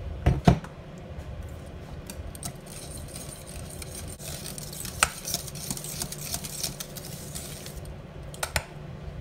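A wire whisk stirring thick polenta, with margarine just added, in a stainless steel pot: a steady wet scraping of the whisk against the metal. A few sharp metal knocks break through, the loudest about half a second in, another near the middle and a pair near the end.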